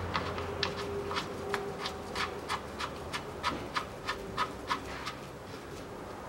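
Ratchet wrench clicking at an even pace of about three clicks a second as it spins the filler plug back into a transfer case, the clicks stopping about five seconds in.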